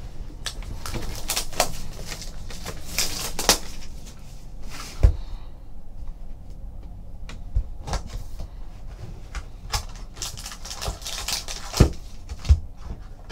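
A trading-card hobby box being unwrapped and opened by hand: plastic wrap crinkling, cardboard rubbing and flaps opening, with a few sharp knocks about five seconds in and near the end.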